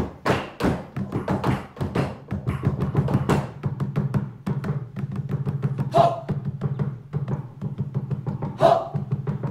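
Ensemble drumming on improvised household drums such as upturned buckets and cloth-draped stools, with a dense run of quick strikes over a steady low tone. Two louder accents stand out, about six seconds in and near the end.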